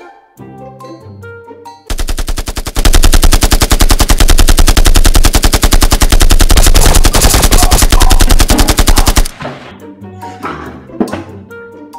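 Dubbed machine-gun sound effect: one long burst of rapid automatic fire lasting about seven seconds, very loud, over background music that carries on before and after it.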